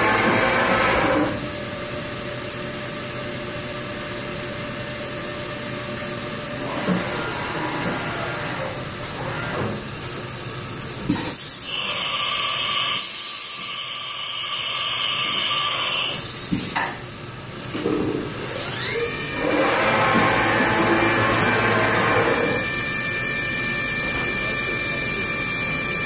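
1996 Hurco BMC 4020 vertical machining center running under power, with a steady high machine whine. A loud hiss comes in for several seconds around the middle. About three-quarters of the way through, the whine rises in pitch and settles at a higher speed, as the spindle speeds up.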